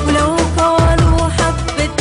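Arabic song with a singer over a steady beat.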